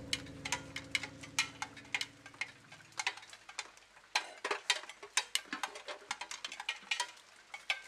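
Big raindrops falling one by one, giving uneven sharp ticks and taps a few times a second. The last held music notes fade out in the first few seconds.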